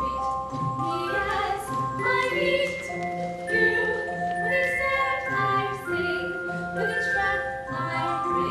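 Music with a group of voices singing held notes that step from pitch to pitch.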